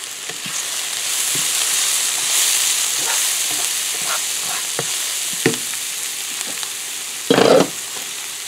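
Chopped mushrooms and onions sizzling in oil and butter in a nonstick frying pan, with a steady hiss and small scrapes and taps as they are stirred with a spatula. A brief louder clatter comes about seven seconds in.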